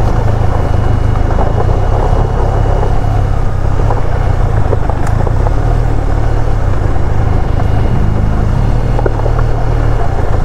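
Benelli TRK 502 adventure motorcycle's parallel-twin engine running steadily at low speed on a dirt trail: a deep, lorry-like drone. A few faint knocks come through as well.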